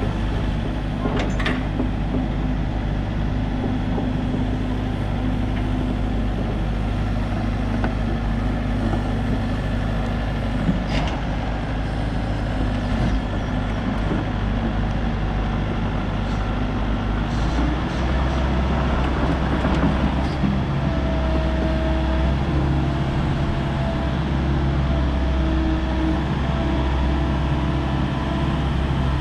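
Volvo ECR88D compact excavator's Volvo D2.6H diesel engine running with the hydraulics working the boom, arm and bucket. The engine note drops about two-thirds of the way through, and after that a wavering whine comes and goes over it.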